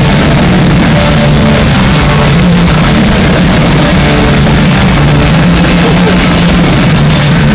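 Live heavy rock band playing through a concert PA, with guitars and a drum kit, recorded on a phone. The sound is loud, overloaded and muddy, with a thick low end swamping the detail.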